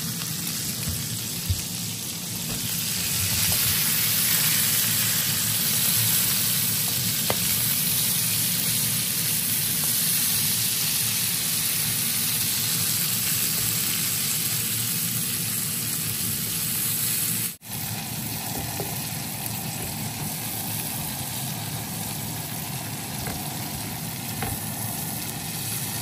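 Asparagus and broccoli sizzling in melted butter in a frying pan, a steady frying hiss that grows louder a couple of seconds in. It drops out for an instant about two-thirds of the way through, then carries on a little quieter.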